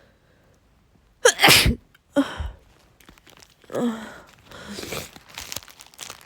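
A woman with a head cold sneezing three times in quick succession, the first about a second in and the loudest. Softer breathy noises follow the last sneeze.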